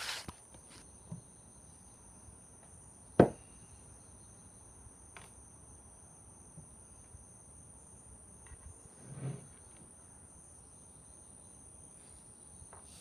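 Steady high insect drone in two tones throughout, with a sharp knock about three seconds in and a few light clicks and a brief rustle near the nine-second mark as small helmet parts are handled and set down on a wooden table.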